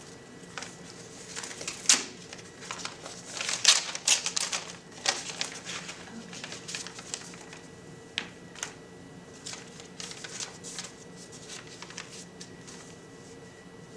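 A folded sheet of paper being opened and unfolded by hand: a run of sharp, irregular paper crackles and rustles, busiest in the first few seconds and thinning out toward the end.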